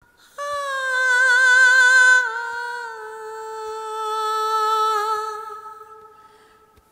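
Film background music: a single high, wordless melodic line with vibrato, held on long notes that step down in pitch twice and then fade away.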